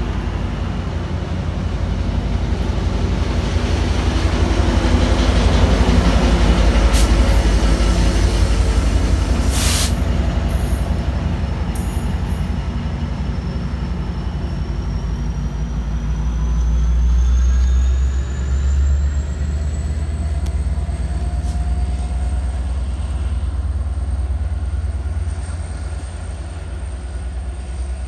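Metrolink commuter train passing close by: bilevel coaches rumbling over the rails with a few sharp clicks, then its F59PHI diesel locomotive going by at the rear before the sound fades as the train pulls away. A thin high whine rises and then holds through the second half.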